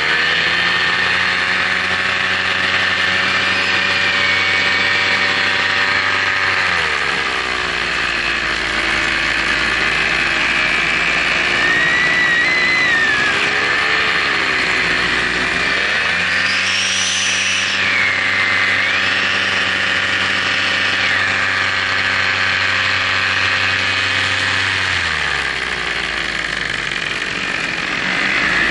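Motors and propellers of a radio-controlled aircraft, heard from its onboard camera, running steadily and changing speed with the throttle: the pitch drops about seven seconds in, climbs back around the middle and drops again near the end.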